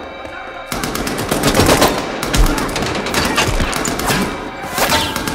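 Rapid automatic gunfire, a dense unbroken stream of shots starting under a second in and running on.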